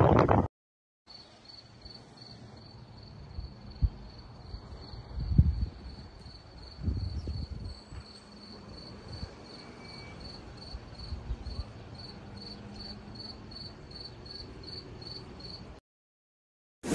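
Cricket chirping steadily, an even high-pitched pulse about two and a half times a second, over a few low thumps of wind or handling on the microphone, the loudest about five seconds in.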